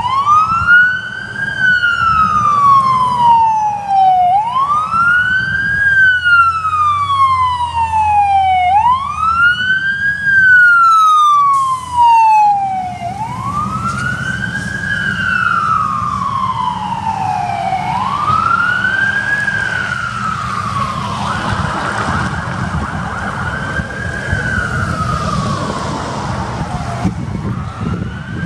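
Fire engine siren on a slow wail. Each cycle rises quickly and falls slowly, about every four and a half seconds, over the low rumble of the truck's engine. It is loudest as the engine passes close by about ten to thirteen seconds in, then goes on steadily as the truck drives away.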